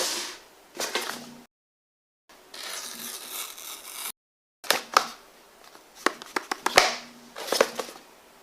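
Hands handling a smartphone's retail box and packaging: thumps and sharp clicks, a scraping slide for a couple of seconds, then a quick run of taps and clicks. The sound cuts out abruptly to dead silence twice.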